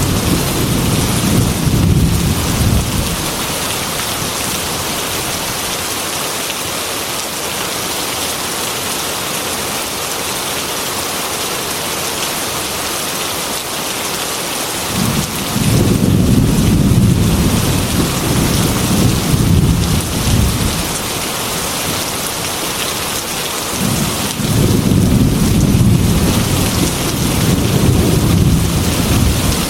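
Heavy rain hissing steadily on a window, with long rolling rumbles of thunder. One rumble dies away in the first few seconds, another rolls in about halfway through, and a third builds near the end.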